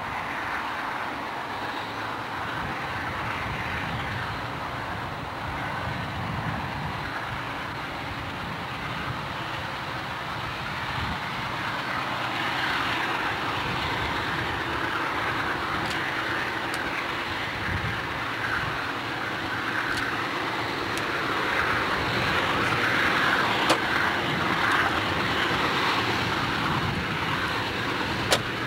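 Diesel freight locomotives working under power as they approach, their engine noise growing louder over the second half, with a couple of sharp clicks.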